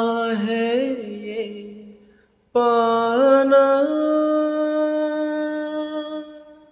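Unaccompanied wordless singing. One phrase with small pitch slides fades out about two seconds in. After a short gap a second phrase steps up in pitch twice and holds a long note, fading near the end.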